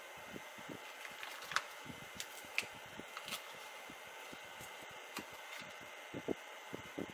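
Faint scattered clicks and taps of hands handling adhesive fiber insulating washers and pressing them onto the ends of 18650 lithium-ion cells, with a few sharper clicks among them.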